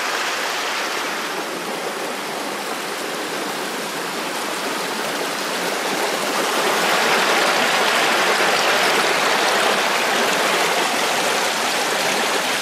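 Small woodland stream running over rocks and little cascades: a steady rush of water that grows louder about halfway through.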